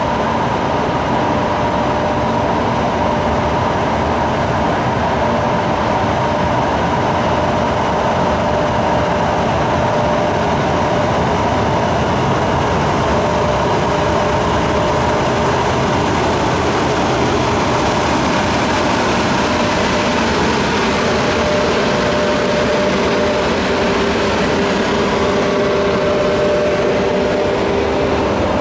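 EP1M electric locomotive departing with a passenger train, then its coaches rolling past: a steady, loud running noise with several held whining tones over it.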